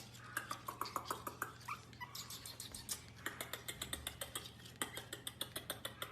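A small dog or puppy making short high squeaks in the first two seconds, amid many quick sharp clicks and taps throughout, over a steady low hum.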